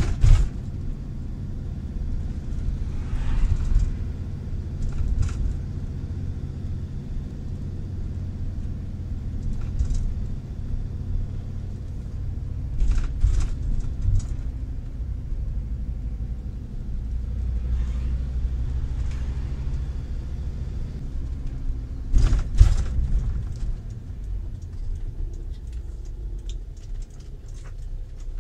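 Inside a motorhome's cab while driving: steady low engine and road rumble, with occasional short knocks and rattles. The rumble drops somewhat near the end.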